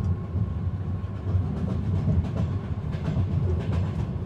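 Train carriage interior ambience: a steady low rumble of the moving train with faint scattered clicks of the wheels over the track, with no music.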